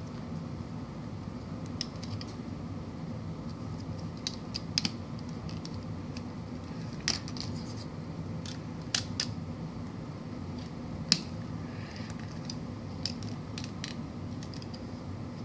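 Lego bricks clicking as pieces are pressed onto a small Lego car model: scattered sharp plastic clicks, a few in quick little runs, the loudest about eleven seconds in, over a steady low hum.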